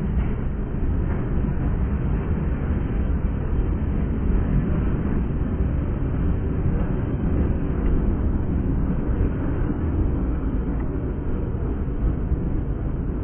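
Freight train of boxcars rolling past with a steady low rumble, mixed with uneven wind noise on the microphone.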